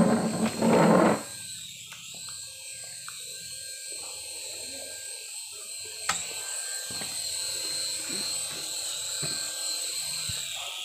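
Small LH-1802R toy RC helicopter flying low, its electric rotor motor giving a steady high whine. A loud, brief noise fills the first second, and there is a sharp tick about six seconds in.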